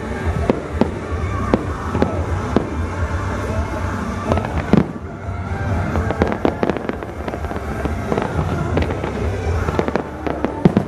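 Aerial fireworks bursting in quick succession, a string of sharp bangs and pops with show music playing underneath; one of the sharpest bangs comes near the end.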